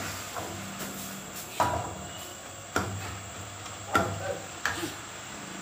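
Metal ladle stirring vegetables in a metal wok, knocking sharply against the pan four times, about a second apart, over a steady low hiss.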